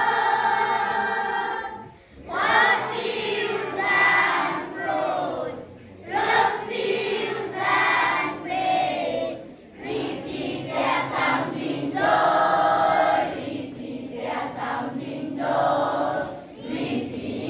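A group of voices singing together like a choir, in phrases with held notes and short breaths between them.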